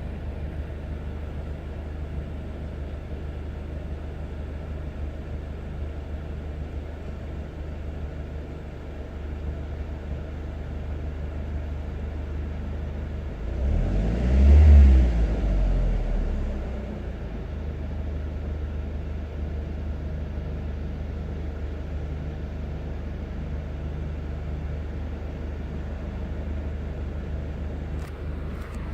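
A car engine idling with a steady low rumble, revved once for a couple of seconds about halfway through and settling back to idle. The owner takes its running for misfiring.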